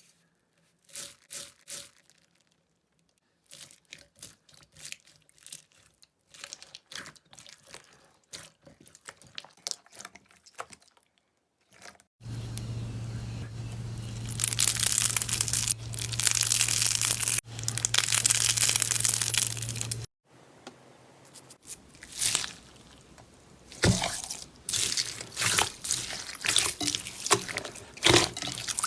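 Slime being pressed and squeezed by hand, giving sticky clicks, crackles and crunches. In the middle there is a stretch of steady hiss with a low hum, and louder pops follow near the end.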